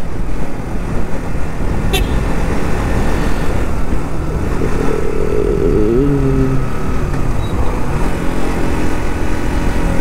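Motorcycle engine running steadily at low speed, with wind and road noise. There is a single sharp click about two seconds in, and a short pitched, gliding sound around the middle.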